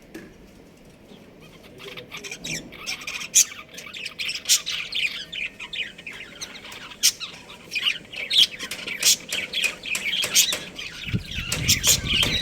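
Budgerigars chirping and chattering: a stream of short, high chirps that is sparse at first and grows busy after about two seconds.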